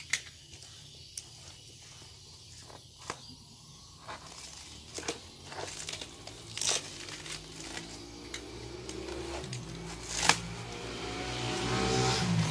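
Plastic wrapping on a cardboard box crinkling and being cut with a box cutter, with scattered sharp clicks and rustles. In the second half a low engine hum grows steadily louder toward the end.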